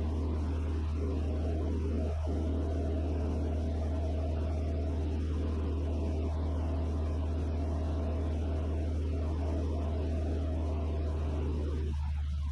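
Van's RV-6A light aircraft's piston engine and propeller droning steadily in flight, heard from inside the cockpit: a constant low hum with a steady higher tone above it.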